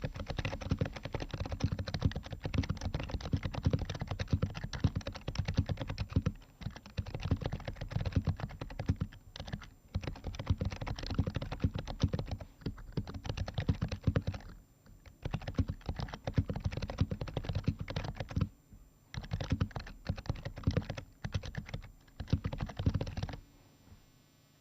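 Typing on an HHKB Pro 2 Type S keyboard, its Topre switches fitted with BKE Redux light domes. Rapid, continuous keystrokes are broken by a few short pauses and stop about a second before the end.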